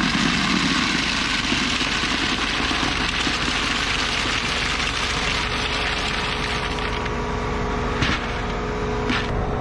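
Winter bean seed pouring from a Claydon Hybrid drill's metering unit into a bucket during calibration: a steady rush that eases off about seven seconds in. Underneath, the John Deere 8270R tractor is idling. Two short knocks come near the end.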